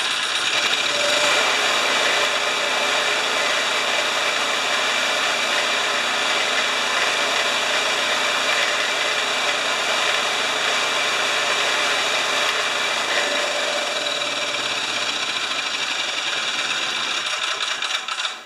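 Homelite 3000-watt portable generator's small engine running steadily; about thirteen seconds in its pitch drops as it slows, and it cuts out suddenly near the end, stalling after the warm restart.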